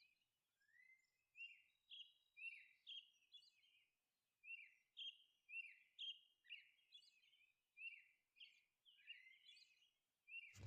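Faint bird chirping: short notes sliding downward, repeating irregularly.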